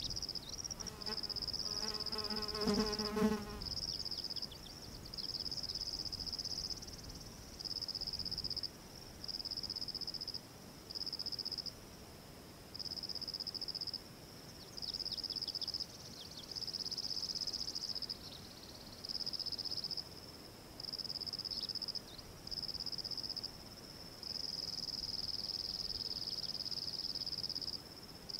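Insects trilling high and steady in repeated phrases of one to two seconds, with short gaps between. About two seconds in, a short lower rattling call with several pitches cuts in briefly over them.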